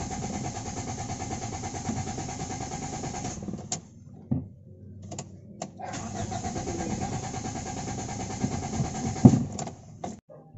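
Toyota Corolla AE92 engine being cranked by its starter motor, twice, each time for about four seconds with a steady whine and rhythmic chugging, and not catching. This is the hard-starting fault, which the mechanic puts down to a weak ignition coil.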